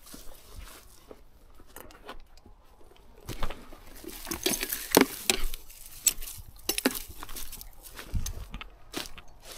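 Irregular crunching, rustling and clicking of handling or footsteps in dry debris, loudest about four to six seconds in. No chainsaw is running.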